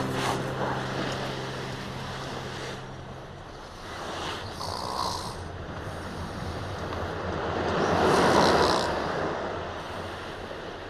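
Sea waves washing onto a beach, rising and falling, with the largest surge about eight seconds in. Soft background music fades out in the first few seconds.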